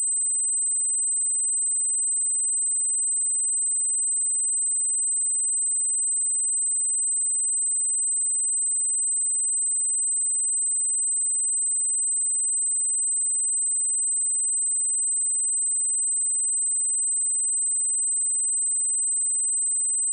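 A pure, steady high-pitched test tone: a single 8111 Hz sine wave held at a constant level, used to check speakers or headphones.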